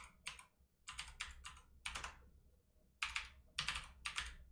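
Computer keyboard being typed on: about ten separate keystrokes at an uneven pace, with a pause of about a second in the middle.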